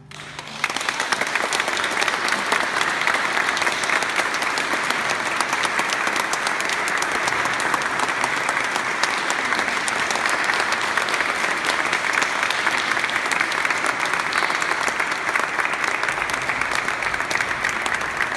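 Audience applauding: dense, steady clapping that starts about half a second in, just as the last organ note dies away.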